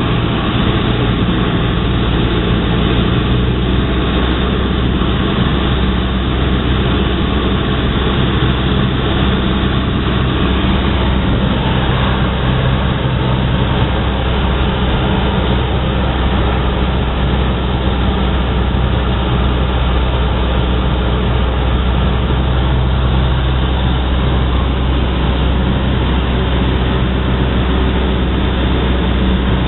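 Cessna 172's piston engine and propeller droning steadily in flight, heard inside the cockpit as a low hum under a dense, even rush of noise.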